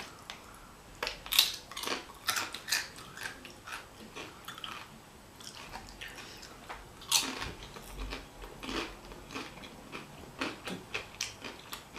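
Close-up chewing and eating mouth sounds of a burrito bowl being eaten, a run of irregular wet clicks and smacks, with a louder one about seven seconds in.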